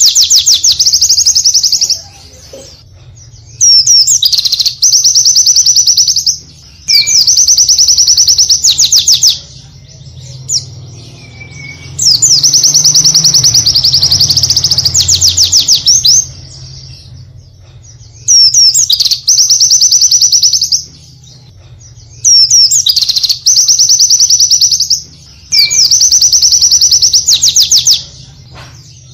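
Pleci (white-eye) song: about seven bursts of rapid, high trilling, each two to four seconds long, separated by short pauses, over a faint low hum.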